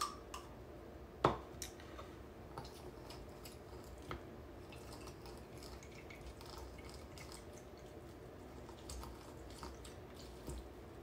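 Lime half being twisted and pressed by hand on a plastic hand citrus juicer: faint squishing and dripping with small scattered clicks, and one sharper knock about a second in.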